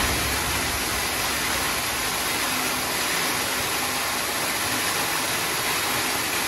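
Large chainsaw on a rail-slide chainsaw mill running steadily, a constant noisy drone with a faint low hum.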